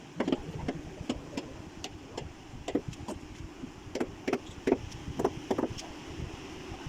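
Irregular knocks and clicks from hand-tool work on a wooden door and its lock, about two a second, over a steady low background hum.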